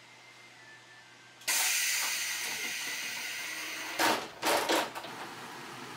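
Pneumatic door of a 12-series passenger coach opening: a sudden loud hiss of compressed air about a second and a half in, fading slowly, then three short sharp bursts of air around four seconds in.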